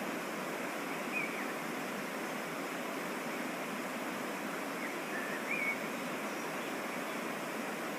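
Waterfall and mountain stream water rushing with a steady, even hiss. Two brief faint chirps sound over it, about a second in and again past the middle.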